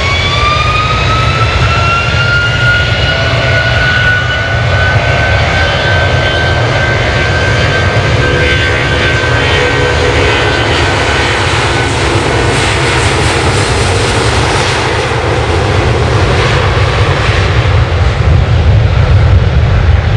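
Jet airliner engines running: a loud whine rises in pitch over the first few seconds and then holds, over a steady low rumble. The whine fades about halfway through while the rumble goes on.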